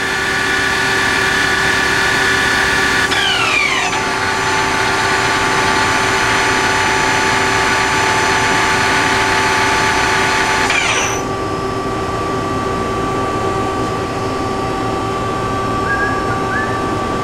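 Gear-driven spindle of a 1986 Tsugami MA-3H CNC horizontal machining center running at high speed near its 6000 RPM maximum, with a steady high whine. About three seconds in its pitch slides down. About eleven seconds in it slides down again and the whine falls away, leaving a steady machine hum.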